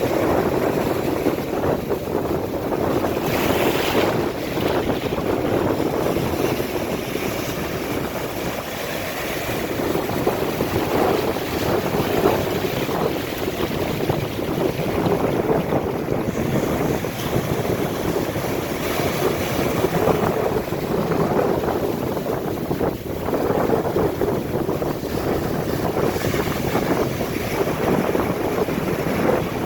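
Ocean surf breaking and washing up the beach, a continuous rushing noise that swells and eases every few seconds, with wind buffeting the microphone.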